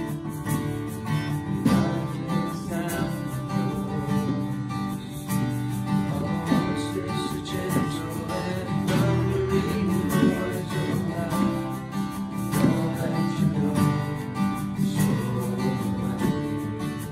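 Acoustic worship band playing a song: strummed acoustic guitars with cajón and hand-drum beats, and voices singing over them from about a second and a half in.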